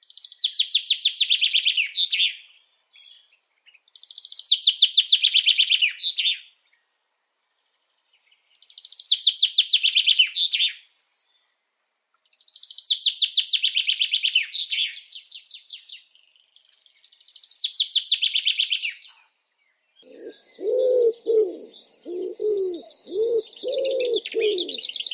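Songbird singing a repeated phrase, a fast high trill that falls in pitch over about two seconds, about every four seconds. Near the end, low repeated cooing notes, like a dove's, come in under a steadier high trill.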